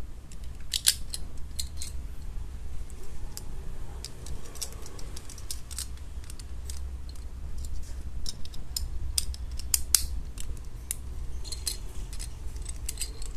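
Small plastic clicks and snaps of a Beyblade Burst top being taken apart and fitted back together by hand, being switched to high mode. The clicks come irregularly over a low steady hum.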